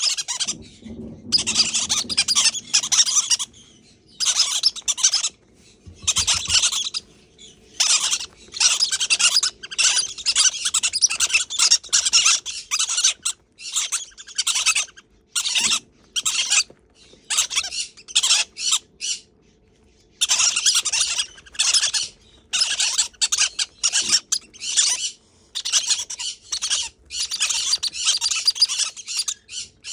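Several green-cheeked conure chicks giving raspy begging calls in rapid, repeated bursts with short breaks, typical of unweaned parrot chicks at a hand-feeding with a syringe.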